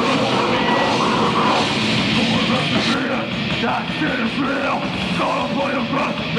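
Live heavy rock band playing loudly, with guitar and drums and a vocalist yelling into the microphone.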